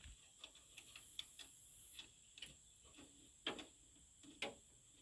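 Near silence broken by faint, irregularly spaced clicks and taps, about eight of them, the clearest two near the middle and towards the end.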